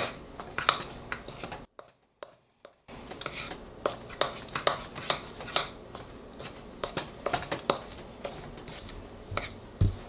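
Hands kneading and squeezing crumbly brownie dough in a bowl: irregular small clicks, scrapes and squishes as fingers work the butter into the dry mix and knock against the bowl. The sound drops out briefly about two seconds in.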